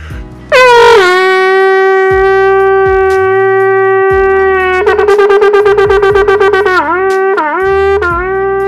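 A long, twisted shofar blown loud: about half a second in, a note slides down and is held steady for about four seconds, then turns into a rapid quavering stretch, then dips in pitch three times in quick succession before settling into a held note again.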